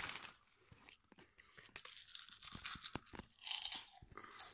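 Faint crinkling of a foil crisp packet as it is handled, with a few soft clicks in the middle and a second stretch of crinkling near the end.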